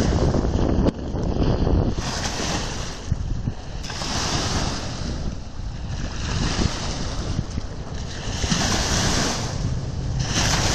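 Strong waves breaking and washing on the shore, surging every two to three seconds, with heavy wind buffeting the microphone.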